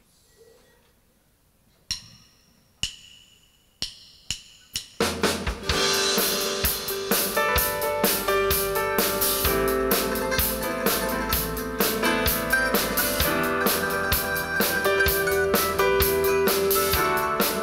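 After a near-silent pause, a few sharp drum and cymbal hits, then about five seconds in a live band starts playing: a drum kit keeping a steady beat under keyboard and guitar, with no singing.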